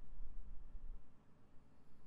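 A sleeping person snoring: a low snore for about the first second, then a quiet lull between breaths.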